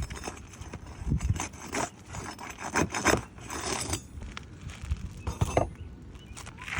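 Asphalt roof shingles being pried up and handled: irregular scrapes, crackles and metallic clinks, with a few sharper strokes.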